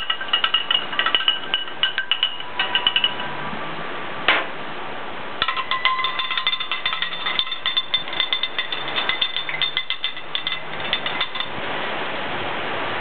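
Metal spatula rapidly clanging against the steel top of a Blackstone griddle, a fast run of ringing clinks. The run stops about three seconds in, a single strike follows a second later, then a second fast run goes from about five to eleven seconds in.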